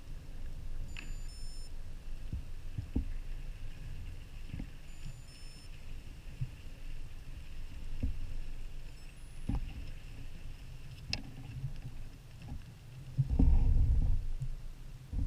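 Underwater sound picked up at depth: a steady low rumble with scattered clicks, and two short high electronic beeps about a second and five seconds in. Near the end a louder low surge of water noise comes as the monofin freediver turns at the bottom and starts to swim up.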